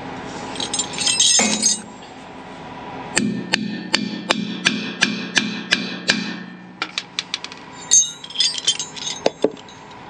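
Hammer tapping a screw extractor (easy-out) into a broken-off fitting: a run of about nine quick, evenly spaced ringing metal taps in the middle, with scattered tool clinks before and after.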